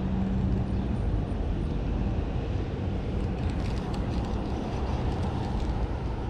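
Steady rumble of road traffic passing near the creek, with a vehicle's engine hum early on fading into the tyre and road noise.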